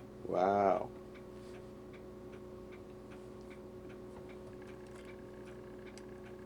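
A clock ticking steadily in the room, with even, faint ticks.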